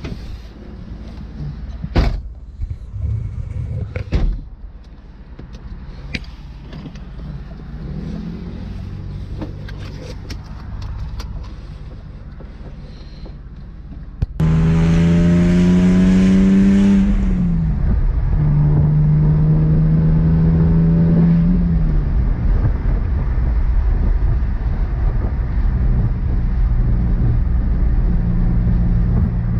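BMW E46 330i's inline-six running low with a few clicks. About halfway through it is suddenly opened up and accelerates hard, the engine note climbing, falling at an upshift, climbing again and falling at a second shift, then settling to a steady cruise.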